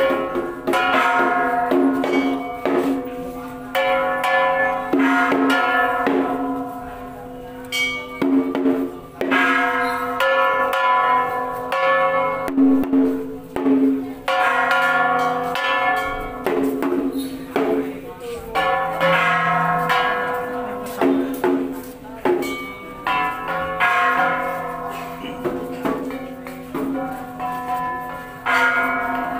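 Ritual gong and bells struck again and again. Each stroke rings on with several tones, and a steady low ringing carries between the strikes.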